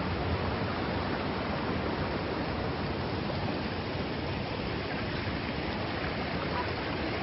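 River water rushing over rocks: a steady, even rush of noise with no breaks.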